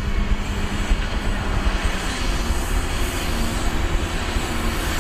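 Diesel engine of a semi-trailer dump truck running steadily with a low rumble while its tipper body is raised to unload sand.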